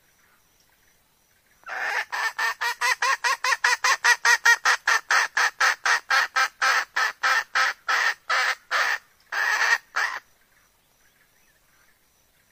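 A red junglefowl hen calling: a fast run of about thirty short clucking notes, roughly three or four a second. It starts about two seconds in and ends with two longer notes near the end.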